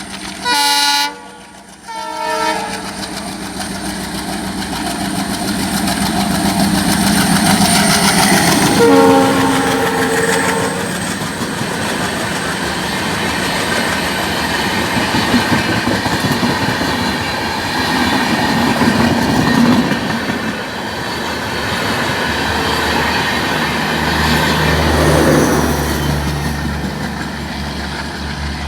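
WDM-3D diesel locomotive's air horn sounding in repeated blasts: a loud short one at the start, another just after, and a longer one about nine seconds in. It passes at speed with its coaches, and the wheels clatter steadily over the rail joints. A low rumble rises near the end.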